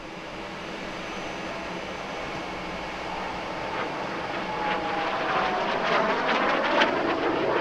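Aero L-29 Delfín jet trainer's single turbojet engine running, the jet noise growing steadily louder, with a whine that glides down in pitch in the second half.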